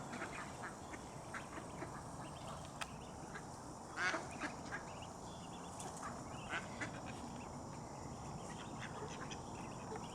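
A flock of mallards quacking on and off in short calls, the loudest quack about four seconds in.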